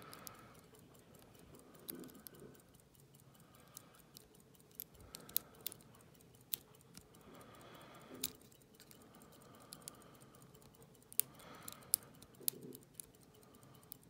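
Faint, irregular metallic clicks and ticks of a lock pick working the pin tumblers of a Federal 730 padlock under light tension, with a few sharper clicks scattered through.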